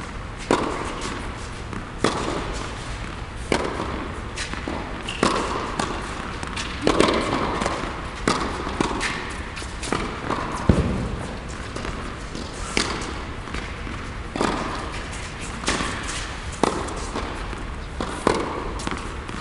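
Tennis rally on an indoor hard court: sharp racket strikes and ball bounces every second or two, echoing in the hall.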